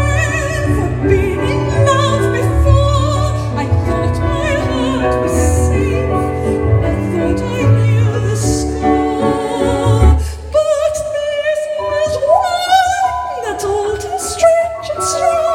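Musical-theatre song: singing with vibrato over a full instrumental accompaniment with a strong bass. About ten seconds in, the accompaniment thins and one wavering voice carries on over lighter backing.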